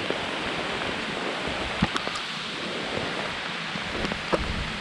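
Light rain falling, a steady even hiss with a few sharp taps scattered through it.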